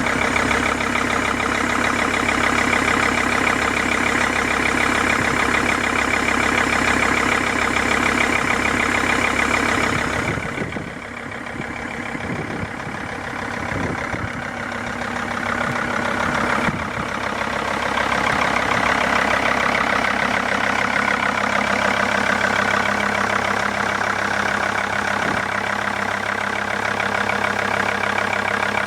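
Mercedes-Benz W211 E-Class engine idling with a steady fast knock, the knocking the owner is recording. It turns quieter and duller for several seconds in the middle, then comes back suddenly.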